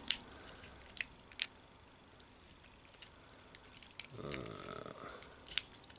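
Small, sparse plastic clicks and taps as the feet and head of a Rock Lords transforming figure are folded in to close it up into its rock form. A short low hum from a man comes about four seconds in.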